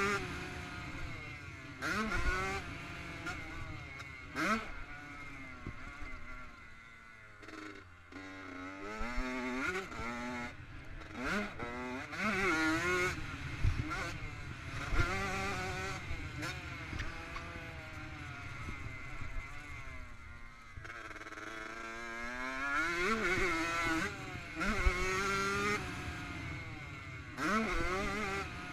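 Honda CR85 two-stroke single-cylinder engine revving up and falling back again and again as the bike is ridden around a dirt track, heard from the rider's helmet. The revs drop right off twice, about a quarter of the way in and again past two-thirds, before picking up, with short knocks from the bike over bumps.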